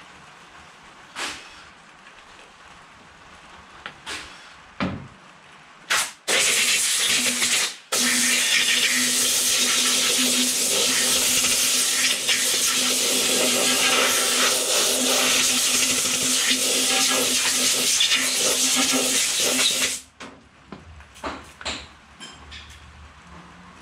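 Aerosol brake cleaner spraying: a short burst about six seconds in, then a long steady hiss of about twelve seconds, flushing the part clean. Light knocks of parts being handled come before and after.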